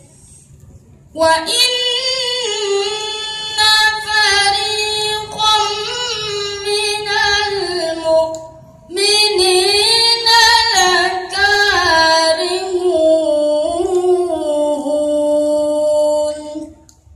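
A boy's high voice chanting melodic Quran recitation (tilawah) into a microphone: two long, ornamented phrases with a short breath between them about halfway through.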